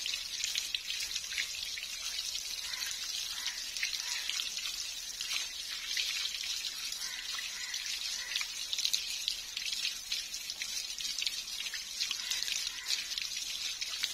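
Water trickling and splashing, with many small irregular drips.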